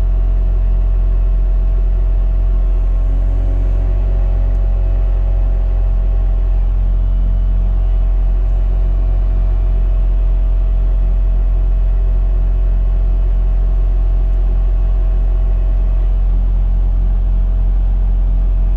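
Skid steer's diesel engine running steadily at about 1,300 rpm, heard from inside the cab, with a low drone and a steady whining tone over it.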